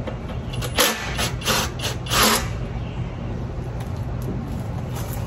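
A socket ratchet worked in a handful of short clicking strokes, from about a second in to about two and a half seconds, loosening a bolt on the compressor's electrical box, over a steady low hum.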